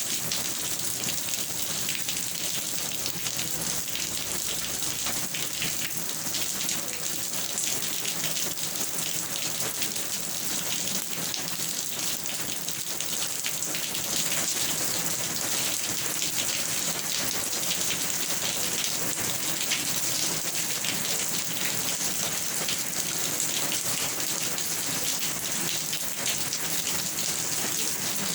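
Steady rain falling on a surface, a dense even hiss full of fine drop patter.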